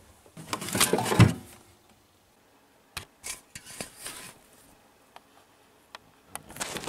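Aluminium drink cans and other small items being handled and moved around. A burst of rustling and clatter comes in the first second and a half, then scattered light knocks and clicks follow.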